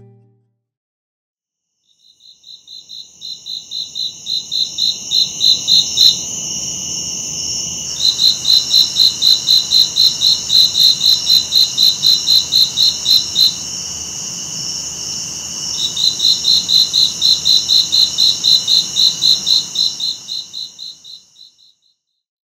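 Crickets chirping: a rapid pulsed chirp, about four a second, over a steady high insect trill. It fades in about two seconds in and fades out near the end. The pulsed chirping breaks off twice for a couple of seconds.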